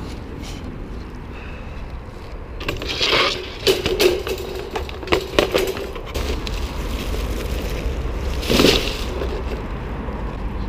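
Metal shopping trolley loaded with broken plastic scrap, rattling on its wheels as it is pushed, with the scrap clattering and knocking in the wire basket. Bursts of clatter come a few seconds in and again a few seconds before the end as pieces are shifted.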